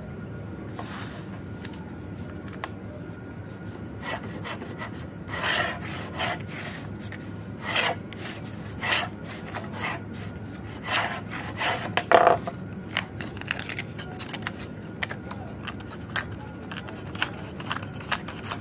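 A homemade wooden marking gauge's pointed cutter scraping through a thin sheet of wood veneer in repeated strokes, scoring and slicing off a narrow strip. The strokes start about four seconds in, are loudest about twelve seconds in, then come as shorter, quicker scrapes.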